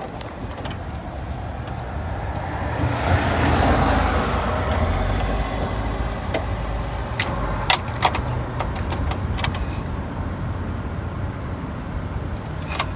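A few sharp, scattered metallic clicks from a torque wrench and 15 mm socket tightening the upper torque motor mount bolts over a steady low hum. A broad rush of noise swells and fades about three to four seconds in.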